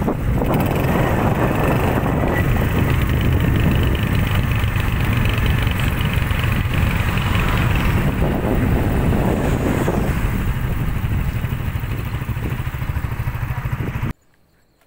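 Motorcycle on the move: engine running under a steady, loud rush of wind over the microphone, cutting off suddenly near the end.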